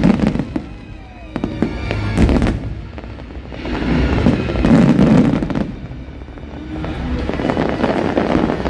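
Aerial fireworks bursting: several sharp bangs and swells of dense crackling, with show music playing underneath.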